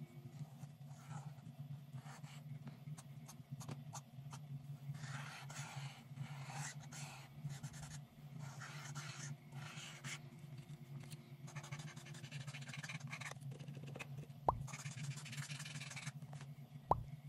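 Marker tip scratching across paper in short, repeated strokes, over a steady low hum. Two sharp knocks near the end are the loudest sounds.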